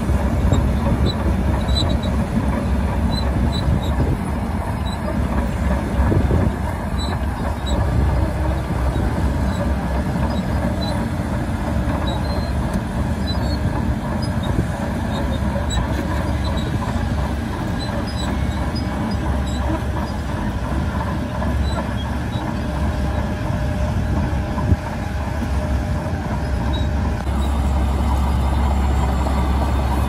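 Shantui DH17C2 LGP crawler bulldozer's diesel engine running steadily under load as it pushes a mound of sand, with light clinking from its tracks. Near the end the sound changes to a steadier, stronger low engine hum from another Shantui dozer.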